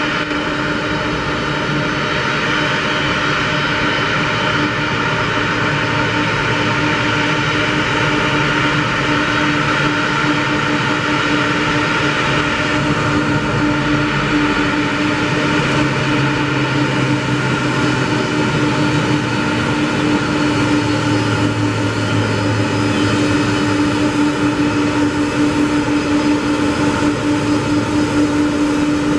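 Boeing 747-400F's four jet engines running as the freighter rolls along the runway after touchdown: a loud, steady engine noise with a constant hum.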